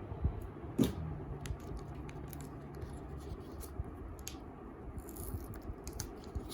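Parcel contents being handled while unpacking: one sharp click just under a second in, then scattered small ticks and light scrapes of packaging and cards.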